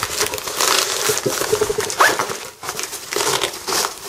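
Continuous rustling and crinkling of a fabric admin pouch and its clear plastic map panel, handled with gloved hands as the panel is pushed back in and the pouch is folded shut.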